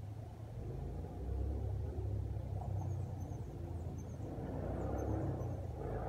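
Low, steady vehicle rumble that grows a little louder about a second in, with faint short high chirps over it in the second half.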